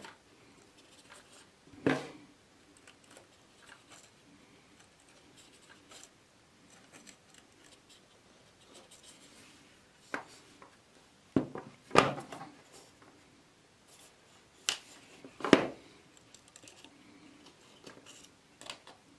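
Small hand tool clicking against thin heating-element resistance wire while the wire ends are twisted together. There are several sharp metallic clicks, the loudest about twelve and fifteen and a half seconds in, with faint scratching and rubbing between.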